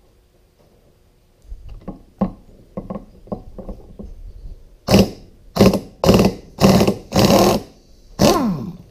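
Pneumatic impact wrench on a nut of a hydraulic lift cylinder: a few clinks as the socket is fitted, then about six short loud bursts of hammering from around five seconds in, the last one winding down in pitch.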